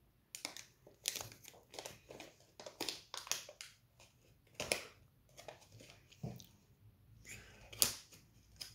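Plastic candy packet crinkling and crackling in the hands as it is handled and worked open, in irregular sharp crackles, with a louder crackle just before the end.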